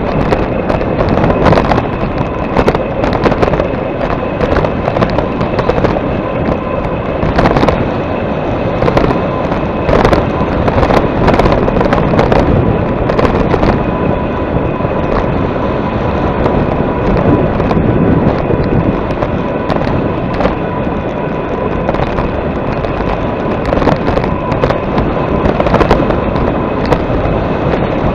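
Heavy wind buffeting on the microphone while riding into a headwind, with frequent sharp crackling pops and a faint steady whine underneath.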